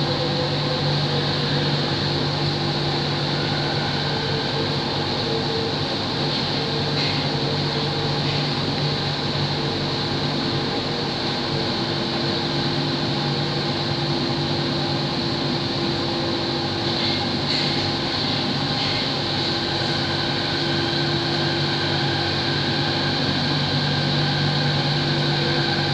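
Steady interior running noise of an elevated metro train in motion, heard inside the car: an even hum with a few constant tones from the motors and ventilation, and a few faint brief clicks midway.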